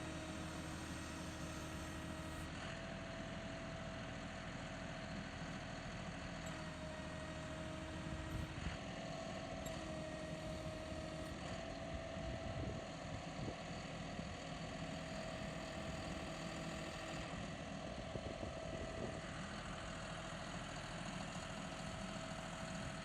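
John Deere 5045E tractor's three-cylinder diesel engine running steadily. A steady tone over it steps slightly in pitch every few seconds.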